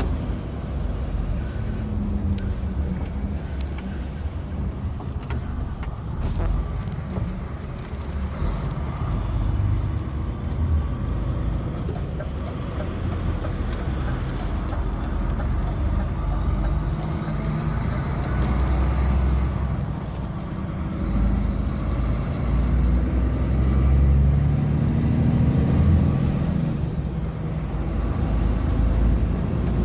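DAF XF 460 truck's stock PACCAR MX-13 straight-six diesel running, its low note rising and falling in pitch and growing louder over the second half, with a few faint clicks over it.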